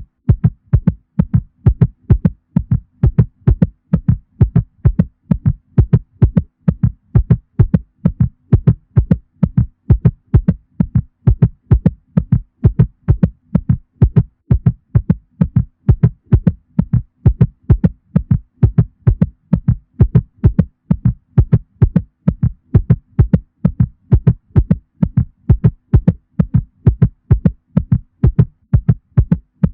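Cat heartbeat sound effect: fast, evenly spaced low thumping beats, several a second, repeating without change.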